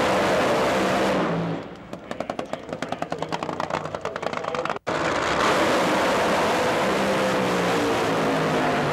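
Drag-racing funny car engines: a loud run, then a quieter, rapidly pulsing engine note that cuts off suddenly just before the middle, followed by another loud full-throttle run.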